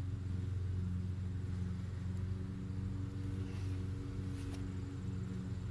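A motor running steadily with a low, even hum, with a couple of faint ticks in the middle.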